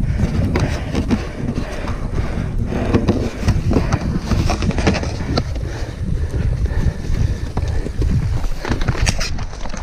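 Mountain bike clattering and rattling over a rough trail at speed, with wind rumbling on the bike-mounted camera's microphone.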